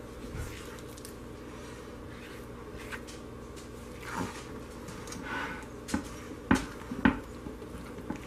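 Silicone spatula stirring and scraping thick hot-process soap paste in a crock pot, soft squelching scrapes, then a few sharp knocks against the pot a little after six seconds in, over a steady low hum.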